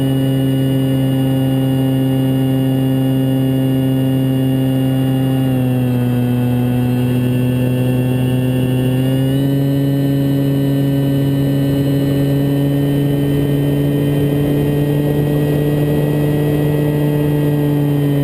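Multiplex Mentor RC plane's motor and propeller droning steadily in flight, heard from on board, over a hiss of rushing air. The pitch drops a little about five seconds in as the throttle eases, then comes back up about four seconds later and holds.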